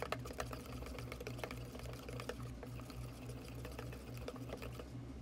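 Slime mixture of glue and contact lens solution being stirred in a stainless steel bowl: faint wet clicks and scrapes, over a low hum that pulses steadily.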